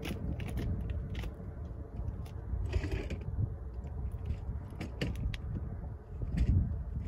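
Wind rumbling on the microphone, with scattered small clicks and creaks and a brief hiss about three seconds in.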